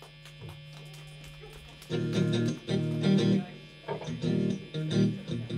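Electric guitars through stage amplifiers strumming chords in short loud stabs with gaps between them, starting about two seconds in: a live band beginning a song. Before that only a steady amplifier hum.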